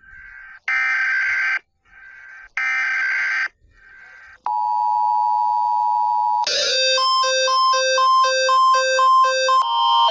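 A series of electronic siren or alarm signals: a tone pulsing on and off about once a second, then a steady tone for about two seconds, then from about six and a half seconds in a quick alternating two-pitch pattern.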